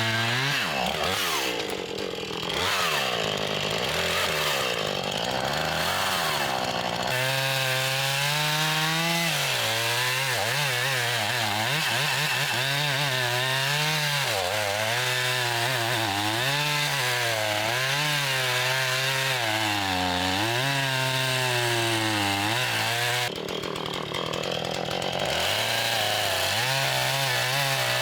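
Chainsaw cutting firewood, the engine's pitch dipping and recovering again and again as the chain bites into the wood. The sound is less steady for a few seconds at the start and again near the end.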